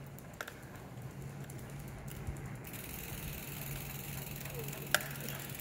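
Bicycle rolling along a concrete floor as a leashed dog pulls it: tyre noise over a steady low hum, the hiss growing a little under halfway through, with one sharp click near the end.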